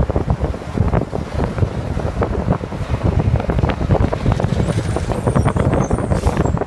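Wind buffeting and crackling on the microphone over steady street traffic noise, with minibuses passing close by.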